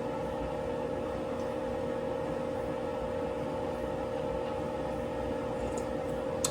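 Steady background hum with one constant tone over a low noisy rumble, like an appliance or fan running.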